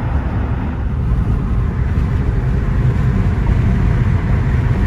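Steady road noise of a car driving at highway speed, heard from inside the cabin: a dense, even rumble with tyre and engine noise.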